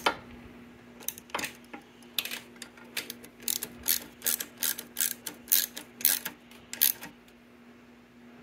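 Socket ratchet clicking as it is swung back and forth to tighten a carburetor mounting nut through a long extension: a run of evenly spaced clicks, about three a second, that stops a little before the end.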